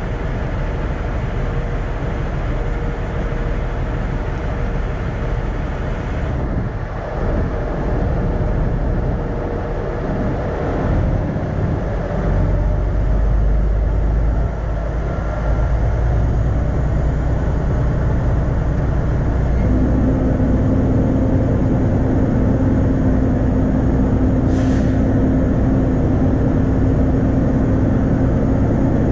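Kenworth truck's diesel engine running as the truck moves slowly, heard from inside the cab. The low rumble grows louder about twelve seconds in, and a steady engine drone settles in about two-thirds of the way through, with a brief high hiss near the end.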